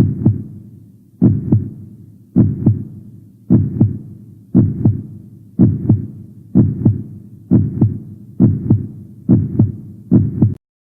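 Heartbeat sound effect: a steady run of double 'lub-dub' thumps, about one pair a second, quickening slightly before cutting off suddenly near the end.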